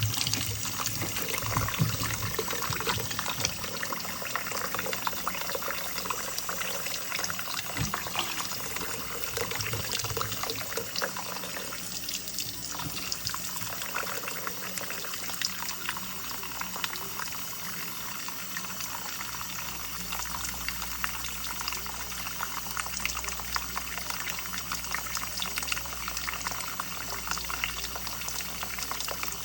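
Steady watery noise of liquid in cooking, thick with fine crackles throughout.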